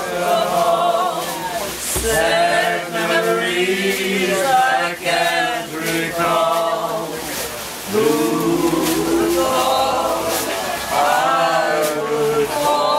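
Jug band singing together: several voices in unison sung phrases, with acoustic guitars strummed underneath.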